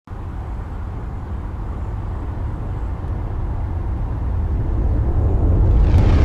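Deep, steady rumble of a starship flyby sound effect, slowly growing louder as the Enterprise approaches, with a rising hiss near the end as it passes close.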